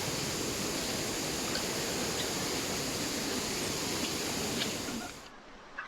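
Steady rushing water noise that cuts off abruptly about five seconds in.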